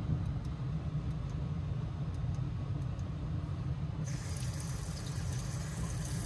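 A washbasin tap in a train washroom starts running water into the basin about four seconds in, a hiss lasting a couple of seconds. Under it is the train's steady low rumble.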